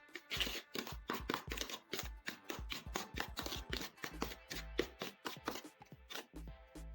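Spoon stirring salt into toothpaste in a container: quick, irregular clicks and scrapes, with background music.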